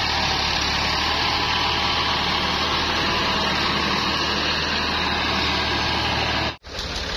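Massey Ferguson 260 Turbo tractor's three-cylinder diesel engine running steadily under load as it pulls a tine cultivator and levelling plank over cloddy soil. The sound breaks off for an instant about six and a half seconds in, then carries on a little quieter.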